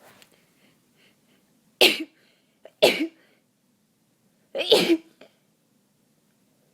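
Three short, wet sneezes from a heavily congested person with a head cold, coming in quick succession about a second or two apart.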